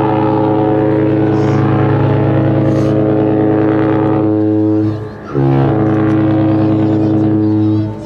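Cruise ship's horn sounding two long, deep blasts: the first lasts about five seconds, and after a brief break a second follows for about two and a half seconds.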